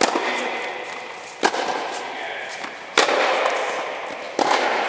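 Tennis balls struck by rackets in a baseline rally: four sharp hits about a second and a half apart. Each hit rings on in a long echo inside an inflated tennis dome.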